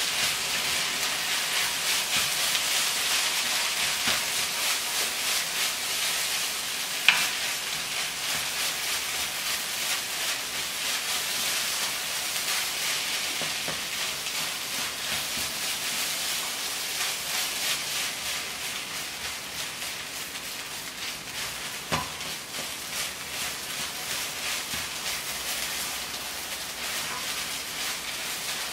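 Fried rice with garlic and green onion sizzling in a nonstick wok while a plastic spatula stirs and scrapes it: a steady frying hiss with soft scraping strokes, and two sharper knocks, about seven and twenty-two seconds in.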